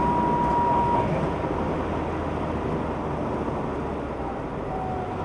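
Car engine and road noise heard from inside the car, a steady drone that eases off. A thin, steady high whine stops about a second in.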